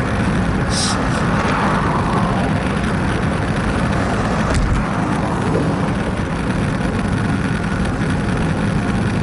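Steady wind rush and tyre-on-road noise on a handlebar-mounted camera's microphone from a bicycle riding along a highway, with traffic in the background. A brief hiss about a second in, and a single sharp click about halfway through.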